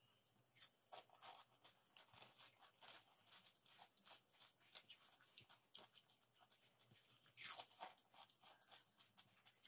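Faint crunching and crackling of crisp, hollow pani puri shells being cracked open and bitten, with one louder crunch about three-quarters of the way through.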